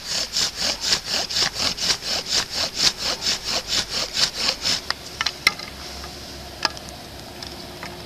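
Bow drill: the wooden spindle rasping in the fireboard as the bow is drawn back and forth, about four strokes a second, while the hearth smokes from the friction heat. The strokes stop about five seconds in, followed by a few sharp wooden clicks.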